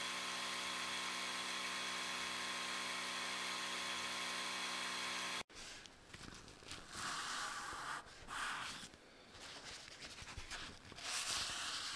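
Creality Falcon2 diode laser engraver running a marking job, a steady hum with several even tones, which cuts off suddenly about five and a half seconds in. After it, intermittent rubbing and handling noises as the laser-marking spray is wiped off the engraved steel disc with a cloth.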